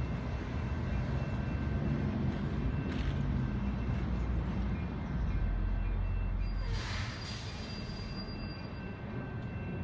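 Steady low rumble of a train approaching from far down the line, with a brief rush of hiss about seven seconds in.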